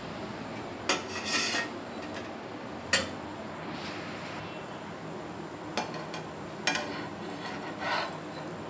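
Metal utensils clinking and scraping against a nonstick dosa tawa. There is a sharp clink about a second in, then a short scrape, another sharp clink about three seconds in, and lighter clinks and scrapes near the end, over a steady low hiss.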